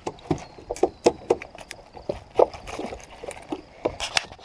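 Irregular knocks, clicks and light water splashes around a small boat as a just-caught bass is landed and handled.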